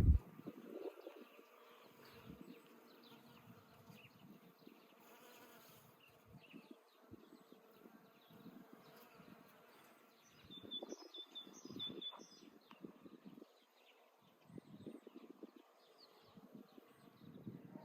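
Flying insects buzzing as they pass close and move away again, the buzz swelling and fading several times, loudest about halfway through and near the end. A small bird gives a quick series of high chirps partway through.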